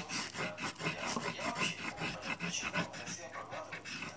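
Pencil scratching back and forth on a sheet of paper over a wooden table, quick repeated shading strokes several times a second.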